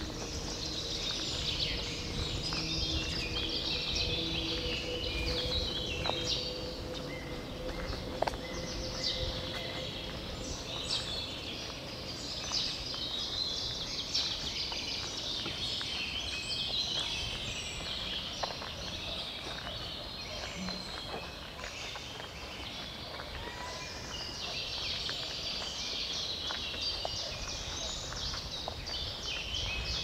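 Many songbirds singing together in a dense dawn chorus of overlapping chirps and trills, over a steady low rumble. A faint steady hum runs under the birdsong for about the first ten seconds.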